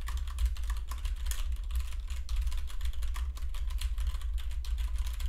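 Rapid typing on a mechanical keyboard heard through a desktop USB microphone standing on the same desk: a fast run of key clicks over a loud low rumble of desk vibration carried into the microphone.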